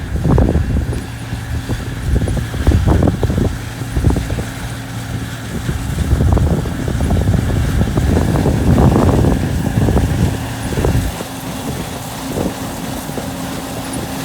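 Vehicle engine running with a steady low hum, overlaid by irregular gusts of wind buffeting the microphone.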